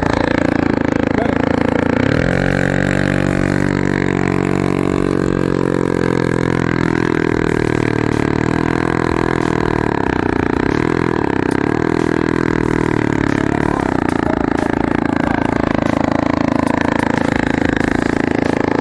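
Small 60cc engine of a Chinese kids' quad running, its pitch rising and falling as the throttle is worked.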